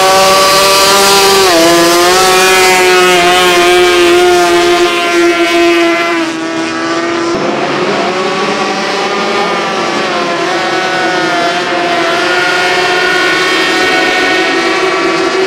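Racing outboard engines of tunnel-hull racing powerboats running at high revs: a loud, steady, high-pitched engine whine whose pitch dips briefly about a second and a half in. About six seconds in it turns quieter, mixed with more noise.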